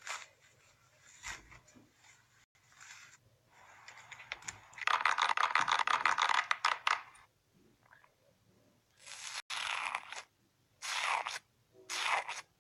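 Slime being squeezed and worked by hand: a dense crackling, crunching run in the middle, then several short separate squishes near the end.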